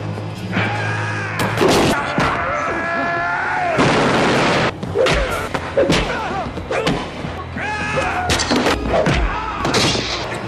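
Film fight sound effects over a music score: a rapid run of punch and kick impacts and thuds as men are knocked to the floor, with shouted cries, the longest held for a few seconds near the start.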